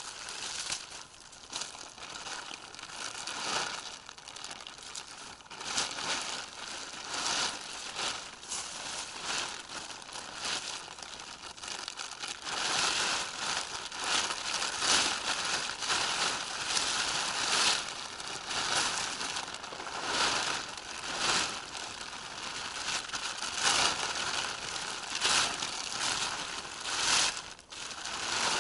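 A tarp crinkling and rustling as it is unfolded, shaken out and draped over a wooden ridgepole. It gets louder from about halfway through.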